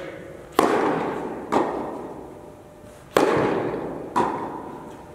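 Tennis ball struck by rackets four times in a rally, starting with a serve, each sharp pop ringing out in the long echo of an indoor tennis hall.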